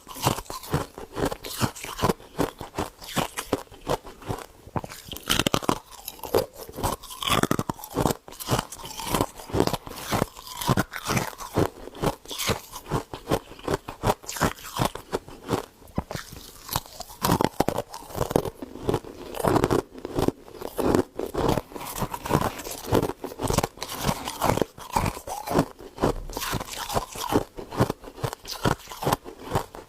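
Close-up crunching and chewing of frost ice: a steady run of sharp, irregular crunches, several a second, as the frozen crystals are bitten and chewed.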